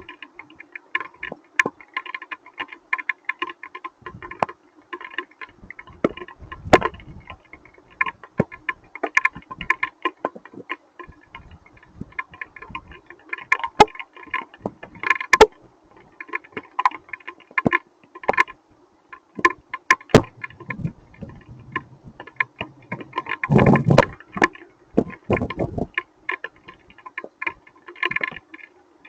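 Hailstones hitting a hard surface as many irregular sharp ticks and clicks, with a denser, heavier spell of hits about three-quarters of the way through.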